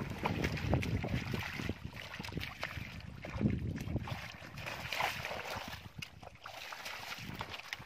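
Bare feet squelching and sloshing through soft wet mud and shallow muddy water, in irregular uneven steps.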